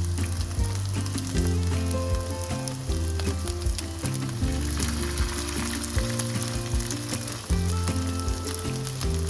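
Food sizzling as it fries in a pan, with instrumental background music and a bass line under it.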